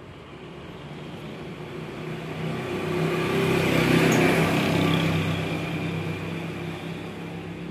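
A motor vehicle driving past, growing louder to a peak about four seconds in and then fading away.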